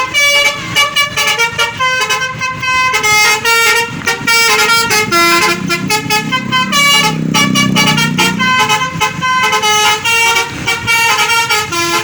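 Indonesian bus telolet horn playing a fast melody of short stepped notes, repeating without a break, then cutting off at the end.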